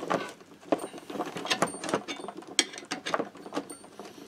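T-handle socket wrench turning the screw of a bearing puller clamped on a moped crankshaft bearing: irregular metallic clicks and knocks of the tool, with a sharp click at the start.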